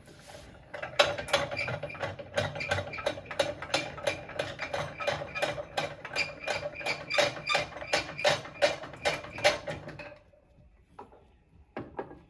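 A handheld power tool runs for about nine seconds with a fast, steady clicking rattle over a motor hum, then stops, followed by a couple of short knocks.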